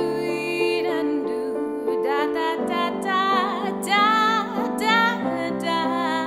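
A woman singing, with vibrato on held notes, accompanied by piano chords played on a keyboard.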